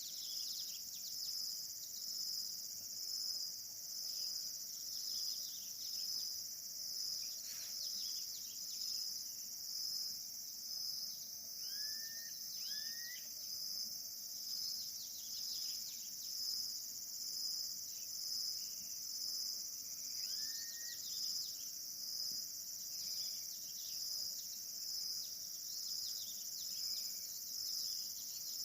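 Countryside insect chorus, a steady high shrill that swells and fades about once a second, with birds singing over it: many short falling chirps, and three rising calls partway through.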